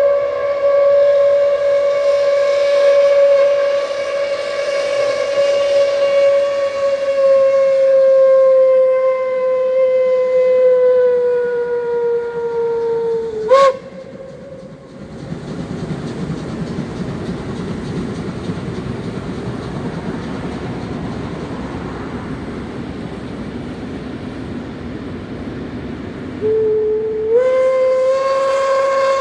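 Steam whistle of a class 01 steam locomotive, held in one long blast for about thirteen seconds with its pitch sagging slightly, then breaking off with a sharp click. A low rumble of the train running follows, and near the end the whistle sounds again, stepping up in pitch as it opens.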